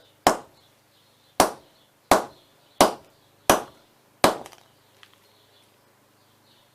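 A hammer striking a phone battery six times: one blow, then five more in a steady rhythm about 0.7 s apart, each a sharp crack.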